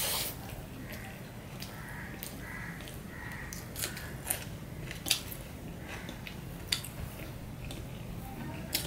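Chewing and eating by hand: soft wet mouth smacks and scattered sharp clicks, several a few seconds apart, as fingers mix rice on a steel plate, over a steady low hum.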